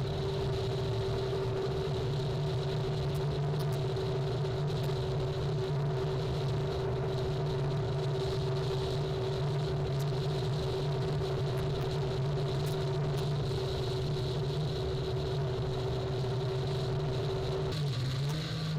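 Jet ski engine running at a steady high throttle, with the hiss of water and spray. Near the end the engine note drops as the throttle eases off.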